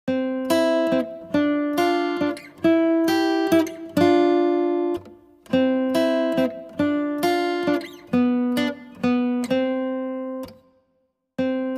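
Background music: a slow melody of plucked acoustic guitar notes, each ringing and fading, with a pause of about a second near the end.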